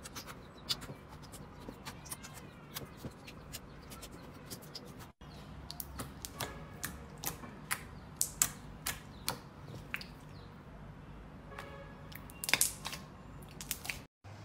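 Slime being squeezed and poked by hand, giving irregular sharp clicks and pops as trapped air squelches out. The loudest pops come near the end.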